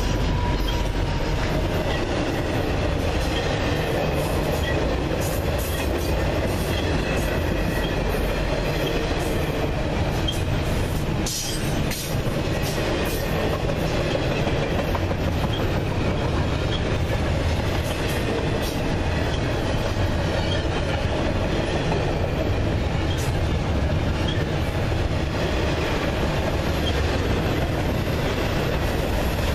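Double-stack intermodal freight train's loaded well cars rolling past close by: a steady rumble of steel wheels on rail, with scattered clicks as the wheels cross rail joints.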